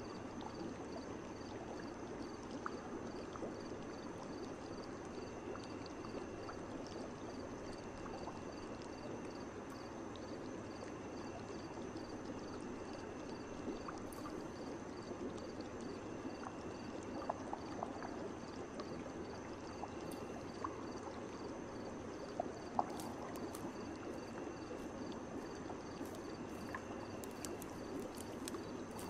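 Ambient loop of steadily running water with a faint, evenly pulsing high chirping of night insects, and a few small drips or ticks in the second half.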